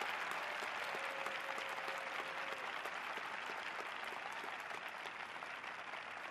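Arena audience applauding at the end of a figure skating program, the clapping slowly dying away.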